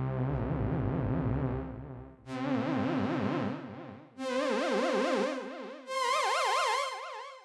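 Dave Smith Instruments Prophet 6 analog synthesizer playing one preset dry, with no external effects: four held notes, each about two seconds long with a strong vibrato, each about an octave higher and brighter than the one before.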